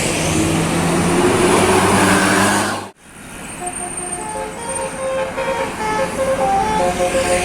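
Road vehicle noise, cut off abruptly about three seconds in; then a bus's telolet horn, the multi-tone musical horn of Indonesian buses, plays a quick tune of short notes at changing pitches.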